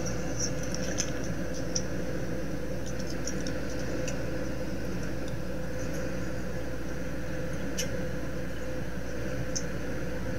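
Airliner cabin noise in flight: an even, steady roar with a constant hum, with a few faint ticks scattered through it.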